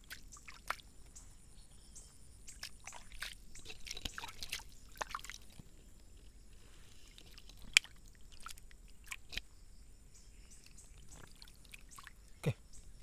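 Shallow pond water sloshing and dripping with small splashes as a hand lets go of a snakehead and the fish swims off. A single sharp tap a little past halfway.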